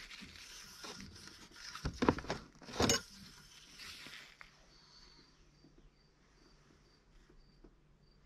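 Engine oil dipstick being handled and wiped with a paper towel: scraping and paper rustling, loudest about two and three seconds in. Afterwards a faint high chirp repeats about twice a second.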